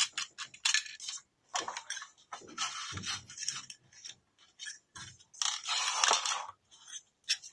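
Handling noise: irregular clicks, taps and scraping as the opened amplifier and its wiring are moved and touched by hand.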